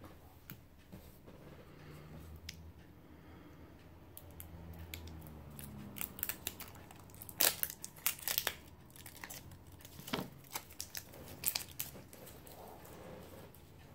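Scattered crinkles and light ticks of a strip of washi tape being peeled off the fingers and handled, loudest about halfway through.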